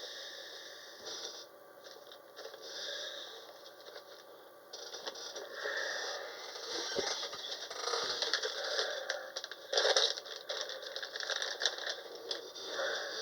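Crinkly packaging rustling and tearing as a collectible pack is handled and opened, with scattered small clicks and rattles, irregular and busier in the second half.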